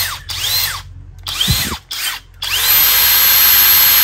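FLEX 24V brushless impact driver spinning free with no load at its top speed setting. The trigger is released and pulled in quick blips, so the motor whine drops away and climbs back up about three times, then holds steady near the end.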